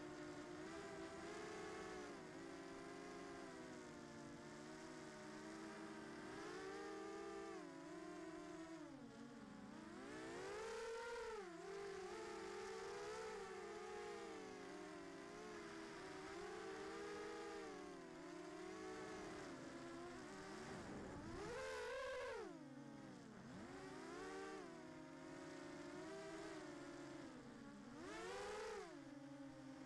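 FPV racing drone's motors and propellers whining, heard from the onboard camera. The pitch rises and falls with the throttle, with harder surges about ten, twenty-two and twenty-eight seconds in.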